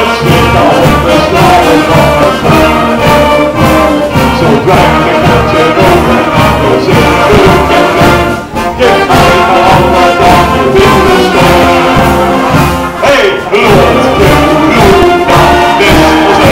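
Wind band playing loud, upbeat carnival music, with brass in front and a steady beat underneath.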